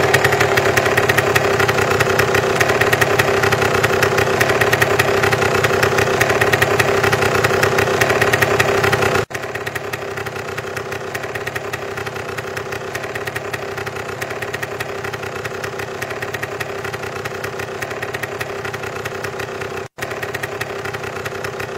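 Home-built ultralight trike powered by a 200 cc motorcycle engine, running loud and steady at high speed. About nine seconds in the sound drops suddenly to a quieter, steady run.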